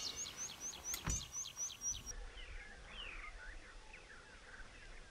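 Small songbirds singing: a quick run of high, repeated chirps for about two seconds, then softer, scattered falling whistled notes after an abrupt cut. A single brief knock about a second in.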